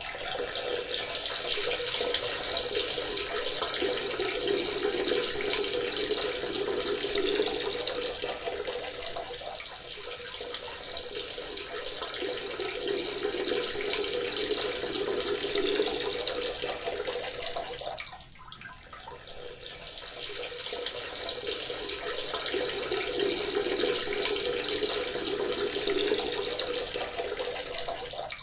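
A person urinating, the stream splashing steadily into water; it weakens briefly about two-thirds of the way through, then picks up again.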